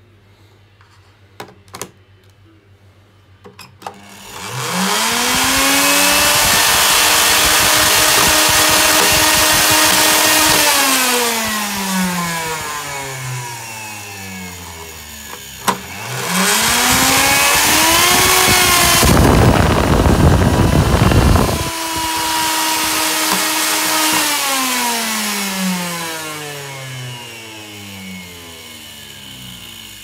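The exposed motor of a Miele S381 vacuum cleaner is switched on and spins up with a rising whine, runs steadily at speed, then is switched off and winds down with a falling pitch. It is switched on again with a click, runs with a loud rushing burst for about two seconds, and winds down again. It is running again after its triac and SMD resistor were replaced.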